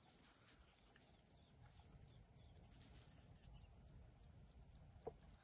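Near silence with the faint, steady, high trill of crickets over a low rumble.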